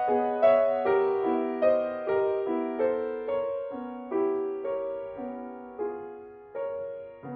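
Grand piano played solo: a gentle melody of single notes and chords over a repeated bass note, each note ringing on. The playing slows and grows softer toward the end, closing a phrase, before a fresh note is struck at the very end.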